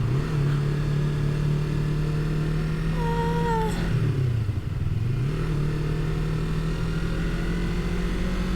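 A 300 cc motorcycle engine running under way at steady revs. The revs drop briefly near the start and again about four to five seconds in, then pick back up. A short falling tone sounds about three seconds in.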